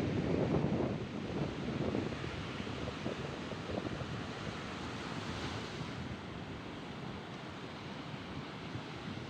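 Sea surf washing steadily, with wind buffeting the microphone in gusts during the first couple of seconds and a wave swelling briefly about five seconds in.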